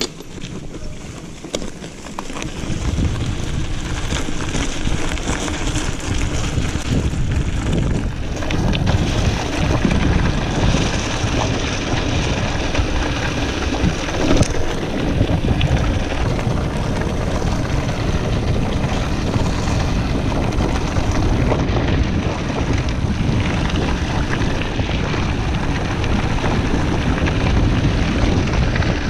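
Wind buffeting the camera microphone and a mountain bike's tyres rumbling over a dirt and gravel trail at speed, with many small knocks and rattles. It grows loud about two seconds in as the bike gets going.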